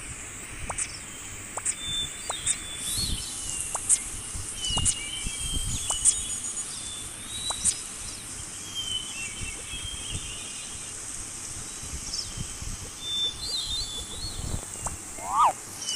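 High-pitched animal chirps and short calls repeating every second or so, with brief quick glides in pitch and scattered light clicks, over a steady outdoor background.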